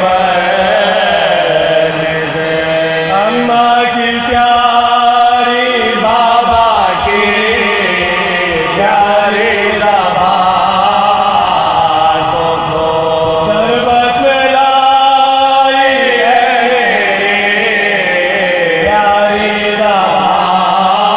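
Men's voices chanting a soz, the unaccompanied Shia lament, in long held notes that glide from one pitch to the next.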